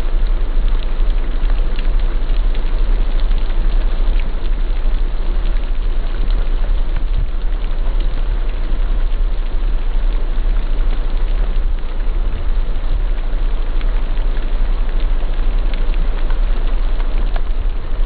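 Steady rain falling, an even hiss sprinkled with small drop ticks, over a constant deep low rumble.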